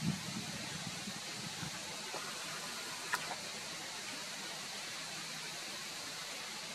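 Steady hiss of outdoor background noise, with a few low thumps near the start and one sharp click about three seconds in.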